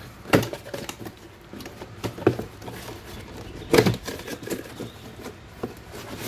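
Handling noises as a toy blaster's box and packaging are opened: three sharp knocks, about half a second, two and a quarter and just under four seconds in, among light tapping and rustling.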